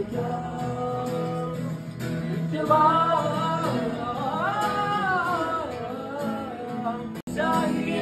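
Men singing a song to an acoustic guitar, the melody rising and falling. The sound cuts out for an instant about seven seconds in.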